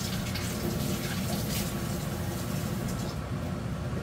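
Large stockpot of chicken soup (dak-baeksuk) at a rolling boil, bubbling steadily.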